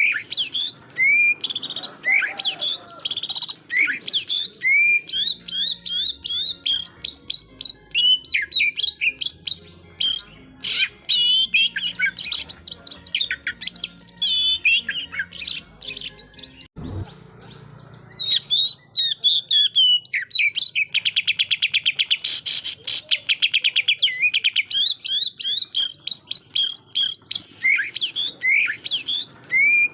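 Oriental magpie-robin (kacer) in full song: a rapid stream of loud whistles and chattering notes. About two-thirds through comes a very fast, even rattling burst, the aggressive 'shooting' (tembakan) phrase. There is a brief pause with a dull thump a little past halfway.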